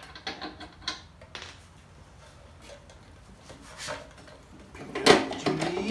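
Metal parts clinking and tapping as the front axle and spacer are worked into a Harley-Davidson Road King's front wheel and fork: a few light clicks at first, then louder ringing metal clatter about five seconds in.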